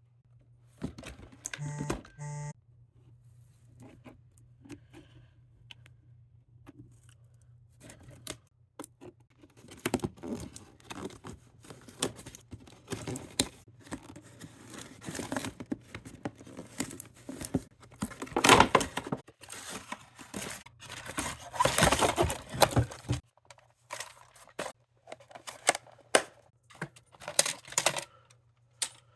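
Packaging and a plastic toy car being handled and opened: irregular rustling, tearing, crinkling and clicking of cardboard and plastic, with a few louder bursts of tearing and crumpling in the second half.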